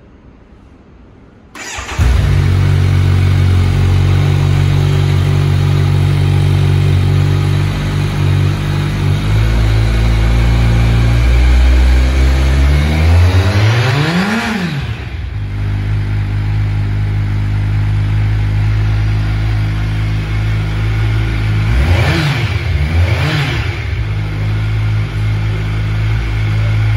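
Kawasaki Ninja 1000SX's 1043 cc inline-four running through its stock exhaust. It starts up about a second and a half in and idles steadily. It revs up and back down once about fourteen seconds in, and gives two short throttle blips near the end.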